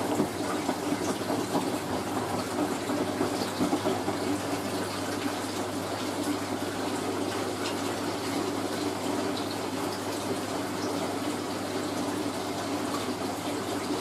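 Hoover A3060 Electronic 1100 washing machine taking in water: a steady rush of water pouring into the drum, with a low steady hum underneath.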